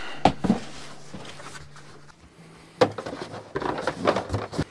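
Handling noise of a Starlink cardboard storage box and its coiled cable being packed: scattered knocks and rustles, the sharpest knock about three seconds in, with a faint low hum in the first half.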